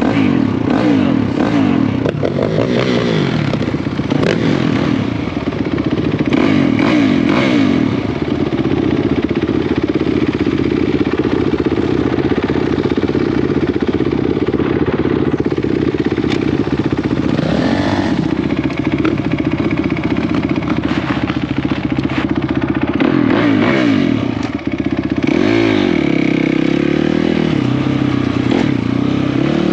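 Off-road four-stroke single-cylinder engine under hard riding, revving up and down again and again as the throttle opens and closes. Near the end it chops off and picks up again.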